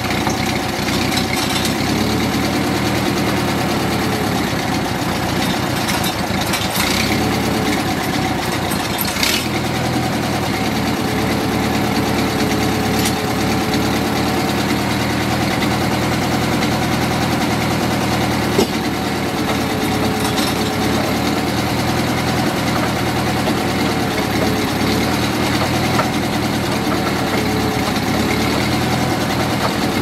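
Mobile Dimension sawmill's engine idling steadily, a continuous drone with a slightly wavering tone in it.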